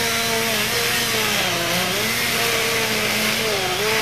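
Chainsaw running at high revs while cutting through a fallen log. Its pitch sags twice, about one and a half seconds in and again near the end, as the chain bites into the wood, and recovers each time.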